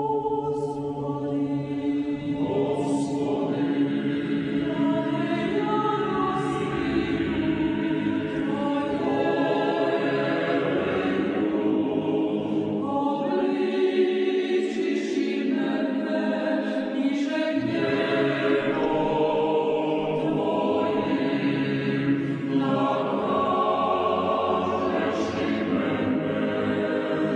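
Choral music: a choir singing slow, long-held chords that shift every few seconds.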